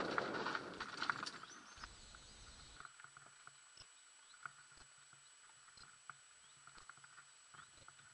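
Mountain bike ride noise on the camera: a rushing of wind and tyre rolling that fades out over the first two seconds or so, then faint, scattered, irregular clicks and ticks.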